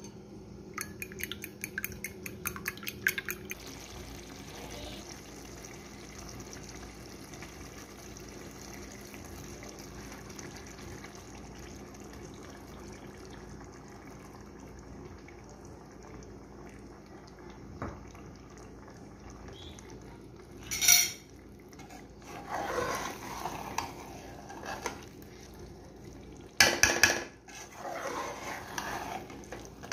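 A fork beating eggs in a bowl, rapid clinks for a couple of seconds near the start. Then a long quiet stretch with a low steady hum. In the second half a metal spoon stirs and scrapes in a metal cooking pot, with a few loud clanks against the pot near the end.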